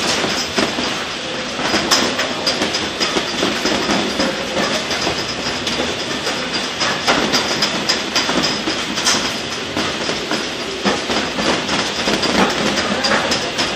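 Potato grading machine running, with a steady mechanical rattle and the clatter of potatoes tumbling over its perforated conveyor, marked by frequent sharp clicks.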